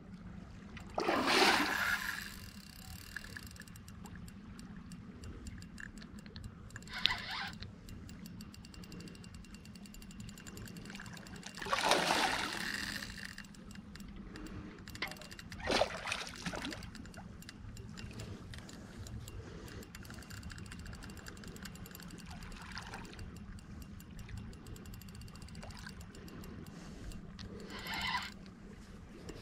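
Hooked wels catfish splashing at the surface by the bank while being brought in to land: five separate bouts of splashing, the loudest about a second in and about twelve seconds in, over a steady low hum.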